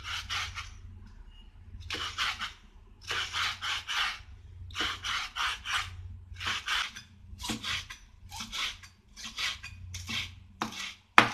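Large kitchen knife slicing a stack of spinach leaves into thin strips on a wooden cutting board: short runs of quick cutting strokes with brief pauses between, about ten runs in all.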